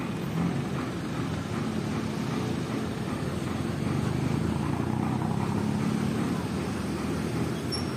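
Steady street traffic noise: vehicle engines running with a low hum.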